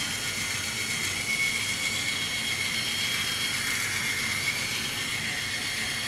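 InStyler rotating hot iron's barrel motor running, a steady high whine over a faint hiss as the heated barrel turns through the hair.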